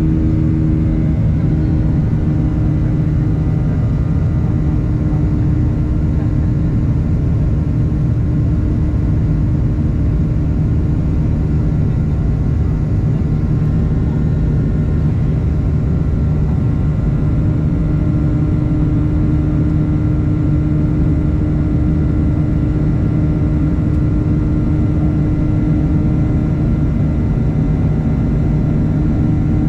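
Steady engine noise of a twin-engine jet airliner during its climb after takeoff, heard from inside the cabin: a low, even drone with a few steady hum tones over it.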